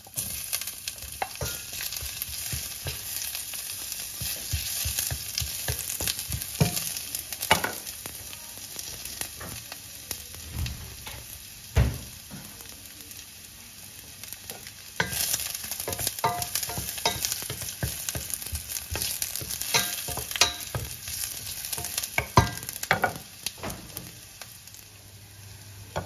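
Ginger sautéing in hot olive oil in a pan, a steady sizzle, with frequent clicks, scrapes and a few louder knocks of the utensil stirring against the pan.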